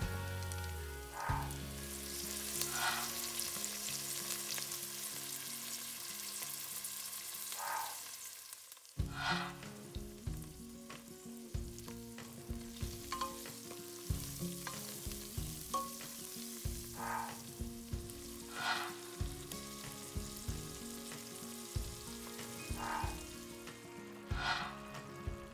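Chopped garlic, then sliced onions, sizzling in hot oil in a saucepan, with a spatula stirring and scraping now and then. The sizzle drops away briefly about nine seconds in, then carries on.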